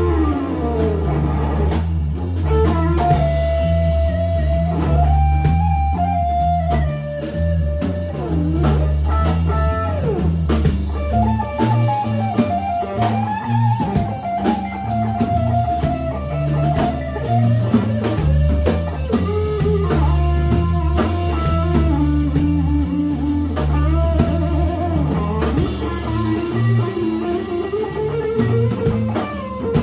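Rock band playing an instrumental live: an electric guitar plays a lead line with long bends and slides over a drum kit and a heavy low end.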